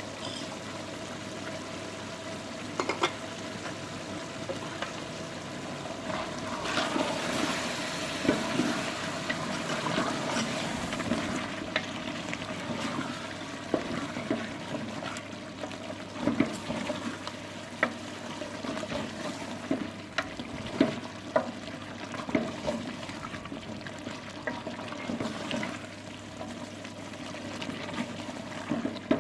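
Liquid sloshing and bubbling in a cooking pot over a steady hiss that swells for a few seconds, with scattered sharp knocks.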